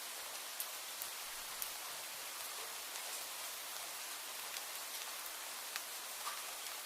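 Steady rainfall, an even hiss with scattered individual drops ticking sharply on a surface.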